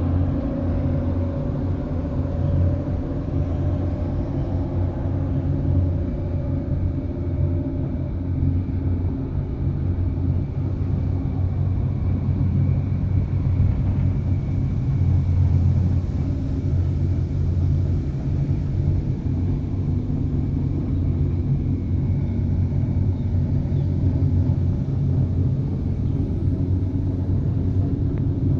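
Steady low rumble inside a moving cable-car gondola cabin travelling along its cable, with a faint hum in the first few seconds that then fades.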